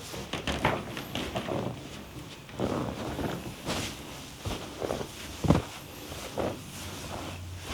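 Irregular soft slaps, knocks and rubbing of hands working on a body during a massage, a few strokes a second with uneven gaps.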